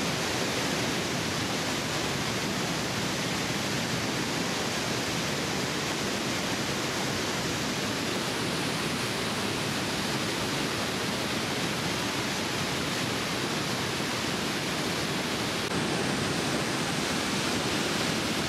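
Steady, even rushing of a large waterfall, a continuous wash of noise with no breaks, a touch louder about three-quarters of the way through.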